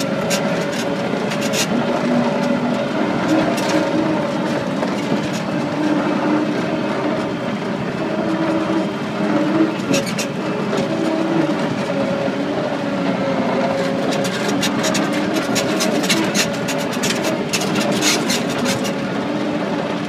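A vehicle running and moving, a steady engine drone with a whine, heard from aboard, with frequent rattles and clicks, thickest in the second half.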